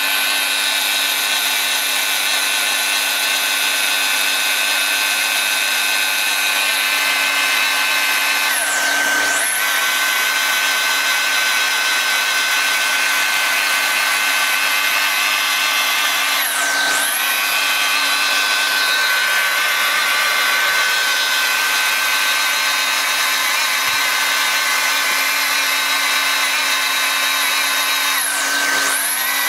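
LST600B hand-held extrusion welder running while it lays an HDPE weld bead around a liner patch: a steady motor whine over the rush of its hot-air preheat blower. The pitch dips briefly and recovers three times.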